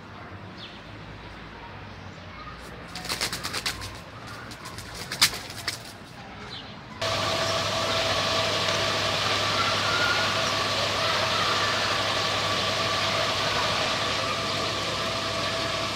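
A trapped pigeon flapping its wings several times. About seven seconds in, the sound cuts to a fire truck's aerial ladder platform at work: its engine running steadily with a constant hum and a steady high whine.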